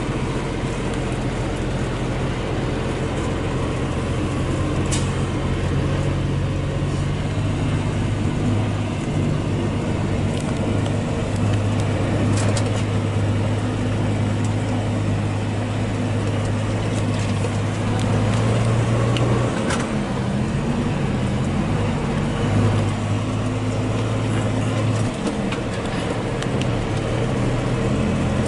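Tractor-trailer's diesel engine heard from inside the cab, idling and pulling at low speed in stop-and-go traffic: a steady low drone that shifts in pitch several times, with a few faint clicks.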